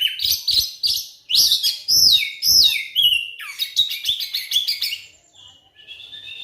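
Oriental magpie-robin (kacer) singing a loud, rapid song of varied chirps and down-slurred whistles. About five seconds in, it eases to a few softer, drawn-out notes.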